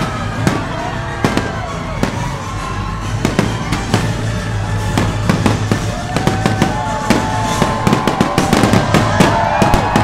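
Fireworks launching and bursting in quick succession, with sharp bangs and crackling that come thicker toward the end, over music.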